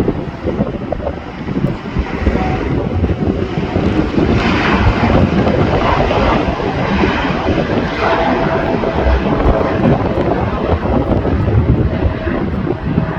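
Jet airliner's engines rumbling as it passes, growing louder about four seconds in and staying loud.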